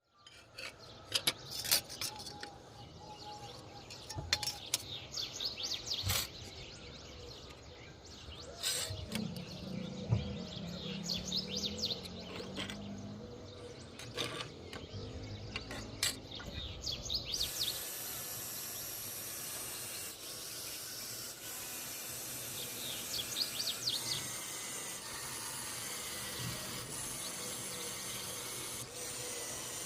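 Small birds chirping repeatedly, with scattered sharp clicks and knocks; about halfway through the background changes to a steadier hiss.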